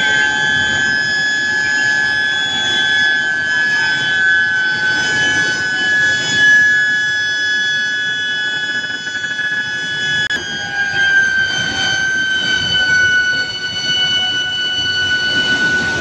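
Electric induction billet heating furnace whining with a steady high tone and several higher overtones, over steady machinery noise from the billet line. About ten seconds in, the tone drops slightly in pitch and then holds.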